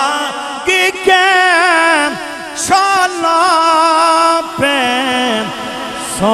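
A man's voice chanting long, ornamented held notes into a microphone, the pitch wavering and sliding, in several phrases with short breaks between them.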